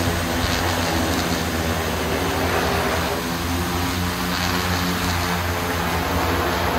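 Large four-rotor drone's propellers whirring as it hovers low and descends to land, the pitch of the rotors wavering and shifting as it settles.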